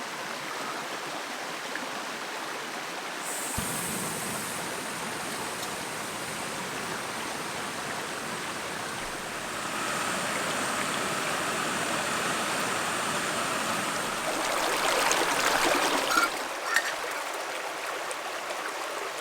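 Stream water flowing steadily, a continuous rushing that grows louder about fifteen seconds in, with two short sharp clicks just after.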